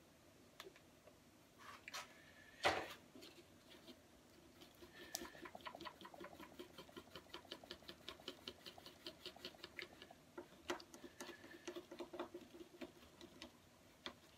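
Faint scraping and tapping of a stir stick mixing JB Weld steel-reinforced epoxy on a paper plate, in quick strokes of about four a second through the middle of the stretch. A single sharp knock comes a little under three seconds in.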